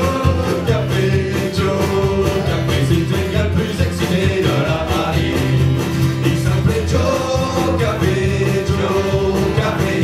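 Live country-style song: acoustic guitar and keyboard playing, with men singing into microphones.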